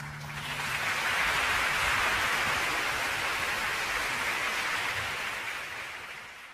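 Concert audience applauding, swelling up over the first second, holding steady, then fading out near the end.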